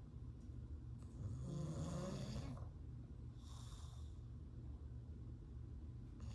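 English bulldog snoring in its sleep: a low rumble under every breath, with one louder snore about a second in and a softer breath a little past the middle.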